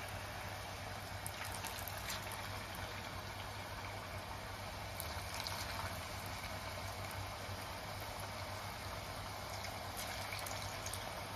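Hot oil sizzling and bubbling steadily in a pot as potato-and-cornstarch sticks deep-fry, with scattered sharp crackles. A low steady hum runs underneath.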